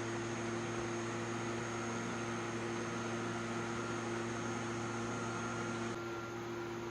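Steady electrical hum with an even hiss, no distinct event: room tone.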